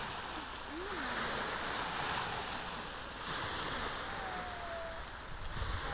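Sea surf washing on the shore, with wind on the microphone. A high, even hiss switches on and off every second or two.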